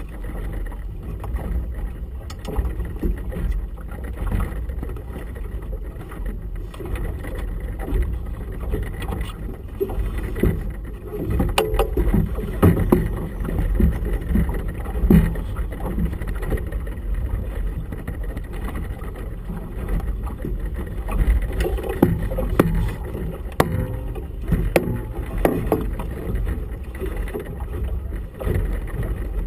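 Small motorboat rocking on choppy water: waves slapping the hull over a low, fluctuating wind rumble, with a few sharp knocks around the middle.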